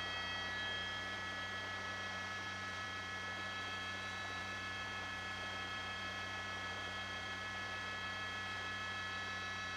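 Steady helicopter cabin noise picked up by the reporter's open microphone: a low hum with a set of unchanging high whining tones over a hiss.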